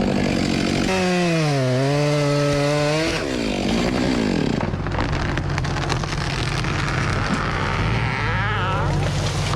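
Two-stroke chainsaw running and cutting into a tree, its engine pitch dipping under load and recovering between about one and three seconds in, then running on lower with pitch rises near the end.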